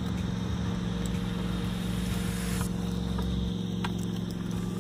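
Steady engine-like motor hum at a constant low pitch.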